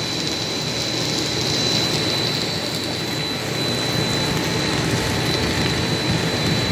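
Bread crumb extrusion line running: the extruder and its screw conveyor motors make a steady machine noise with a constant high whine.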